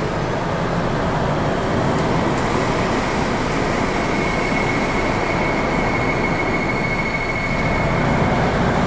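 Steady factory machinery noise, an even rumble and hiss, with a thin high whine that sets in about four seconds in and fades out near the end.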